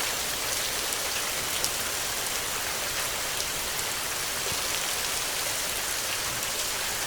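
Heavy rain falling steadily, an even hiss with fine ticks of individual drops, and no thunder.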